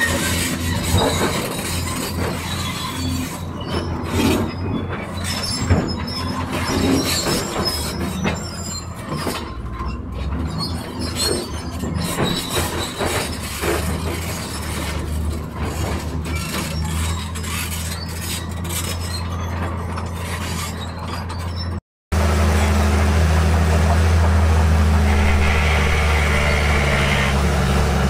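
Bulldozer's diesel engine running under load, with steel crawler tracks clanking and squealing amid irregular knocks. About 22 seconds in the sound cuts out for an instant, and a steadier engine drone with a faint high whine follows.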